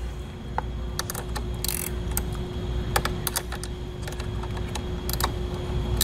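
Ratchet wrench with a 10 mm socket clicking irregularly as the nut on a car battery terminal is loosened, among small taps of metal on metal.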